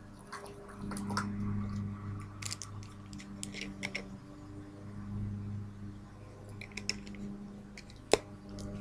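Faint clicks and taps of small objects being handled, with one sharp click near the end, over a steady low hum.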